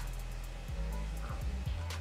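Background music with a steady low bass and short, repeated low notes, playing quietly.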